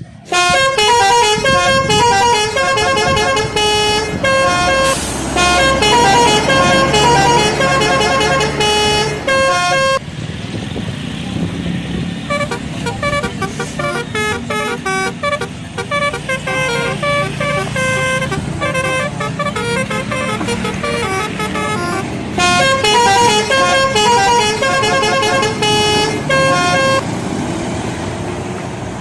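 Indonesian bus telolet horn, a multi-tone musical air horn, playing quick changing melodies of several notes at once over a bus engine's rumble. It is loudest in the first ten seconds and again about three-quarters of the way through, softer in between.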